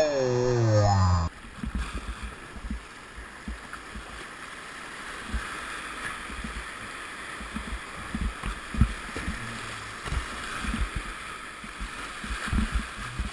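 River whitewater rushing and gurgling around a kayak through a rapid, with irregular low knocks and thumps. For about the first second a pitched voice or music plays, then cuts off suddenly.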